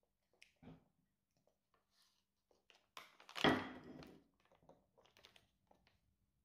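Plastic baby-food pouch crinkling in a baby's hands, with a louder rustle about three seconds in, among small clicks and taps of a plastic feeding spoon.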